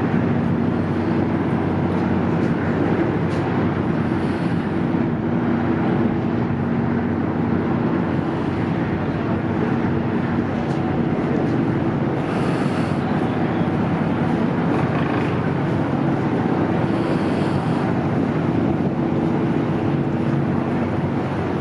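A car ferry's engines running steadily as it manoeuvres away from the berth: a constant low hum with a rumbling drone, over wind on the microphone.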